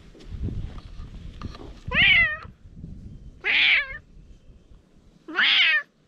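A cat meowing three times, each meow about half a second long and rising then falling in pitch.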